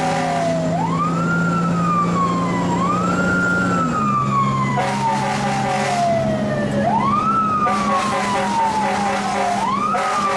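Fire truck siren heard from inside the cab, winding up quickly and sliding slowly back down, four times. The truck's engine runs underneath, its pitch dropping about four seconds in.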